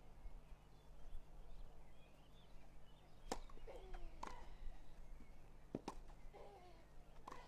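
Tennis ball struck back and forth by rackets in a rally on a grass court: a series of sharp pops starting about three seconds in, roughly a second apart, some in quick pairs.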